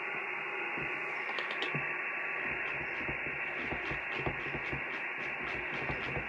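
Steady receiver hiss from an amateur radio transceiver's speaker, cut off above about 3 kHz as through a narrow single-sideband filter, with faint scattered clicks, as the dial is tuned across the QO-100 satellite downlink.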